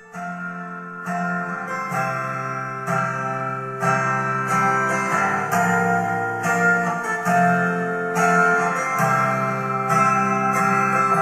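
Background music: guitar picking chords, a new note struck about every half second at an even pace, growing louder about a second in.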